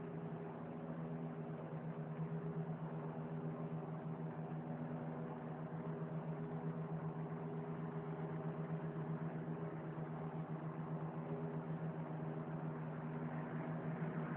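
A steady droning hum in the sky, several low tones held over a rushing noise, slowly growing louder. It sounds like a jet hovering overhead.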